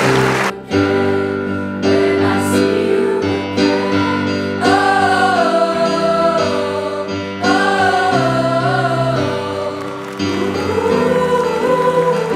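Applause that stops about half a second in, giving way to a song: steady held chords, with a sung melody coming in about four and a half seconds in and carrying on to the end.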